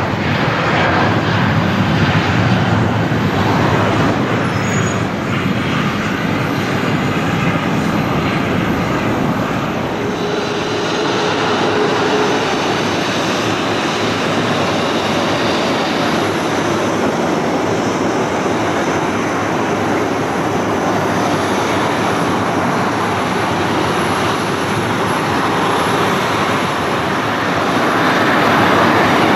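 Boeing 737-300's CFM56-3 turbofan engines running as the jet rolls along the runway and taxis, a loud, steady jet noise that changes a little in character about ten seconds in.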